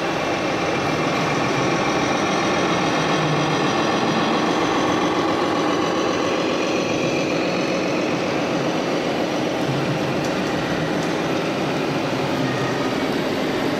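Steady engine sound from RC model trucks and construction machines, running without a break.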